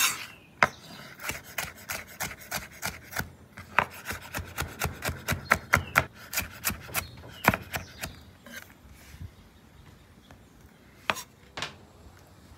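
Chef's knife dicing vegetables on a wooden cutting board: a quick run of knife strikes, about three a second, that stops about eight seconds in. Two more single knocks follow near the end.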